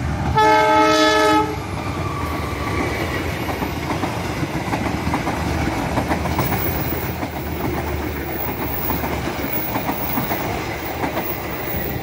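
A CC 203 diesel-electric locomotive gives one short horn blast about half a second in as it leads a passenger train past. Then the coaches' wheels clatter over the rail joints in a quick, uneven clicking over a steady rumble.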